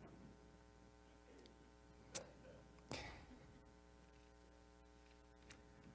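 Near silence: faint steady hum of the room, broken by two brief soft taps less than a second apart, about two seconds in.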